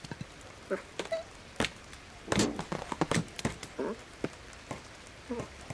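Cartoon sound effects of a cat at a plastic cat flap: a scattering of soft taps and thunks, with a few short cat-like vocal noises, the fullest about two and a half seconds in.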